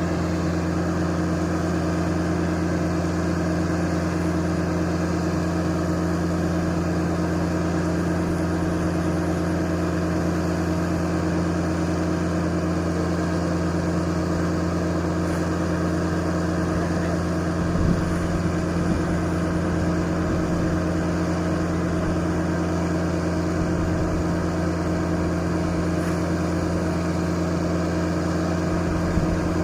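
Diesel engine of heavy construction machinery running steadily at a constant speed, with a couple of low knocks about 18 seconds in and near the end.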